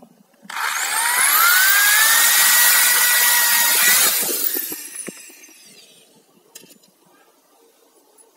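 Electric drill boring into a wooden knife handle. The motor whine rises as it spins up about half a second in, holds steady while the bit cuts, then stops about four seconds in and winds down.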